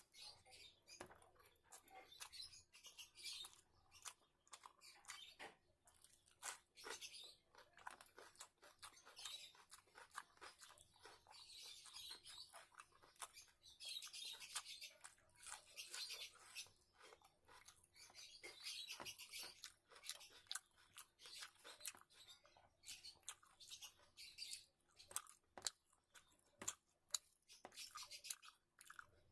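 Faint close-miked eating sounds: wet chewing and lip smacking with many quick clicks, as a meal of rice and curry is eaten.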